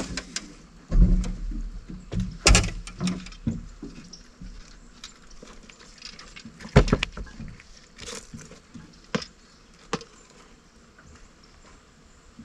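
Knocks, thumps and clicks from a fish being unhooked and handled in a small fishing boat. The loudest are a heavy thump about a second in and sharp knocks about two and a half and seven seconds in.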